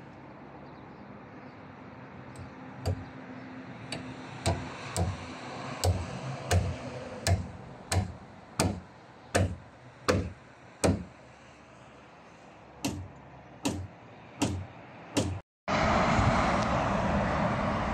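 Hammer blows, about sixteen of them at roughly three every two seconds with a short pause in the middle, over a low steady hum. Near the end the blows stop and a loud steady rushing noise cuts in abruptly.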